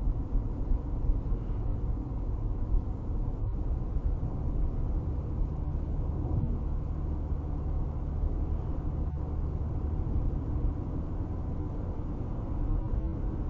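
Steady low road rumble of a car cruising at about 55–60 mph, with tyre and engine noise heard from inside the cabin.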